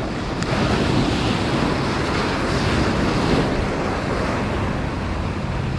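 Small waves breaking and washing over the stone blocks of a jetty, a steady rushing surf that swells a little in the middle.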